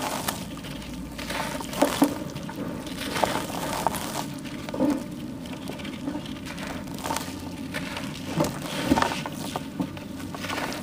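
A dusty charcoal slab being broken and crumbled by hand over a tub of water: irregular crunching and crackling, with small pieces dropping into the water.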